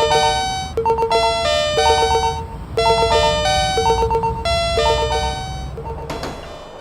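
Electronic chime warning sound of a cartoon level crossing: a short bell-like phrase of high and low tones repeating about once a second. It fades near the end as a rattling clatter begins.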